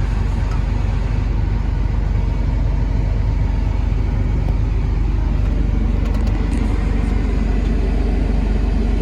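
Caterpillar 336E L track excavator's diesel engine running steadily at an even speed, heard from inside the operator's cab.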